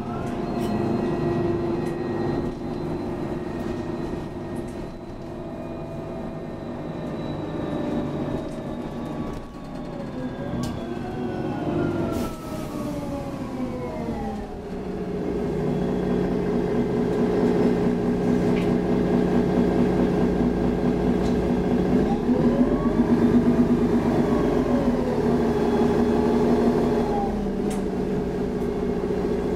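Cabin sound of a Mercedes-Benz Citaro G articulated bus under way: its OM 457 hLA straight-six diesel runs, and whines from the drivetrain fall and rise in pitch. About halfway through, the engine note steps up and grows louder. Further rising-and-falling whines come near the end.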